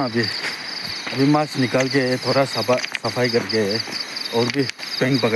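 Insects chirping in a steady, fast-pulsing high trill behind a man's voice talking.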